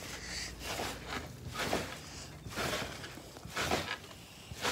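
A person in socks bouncing on a trampoline: a steady series of landings on the mat, roughly one a second.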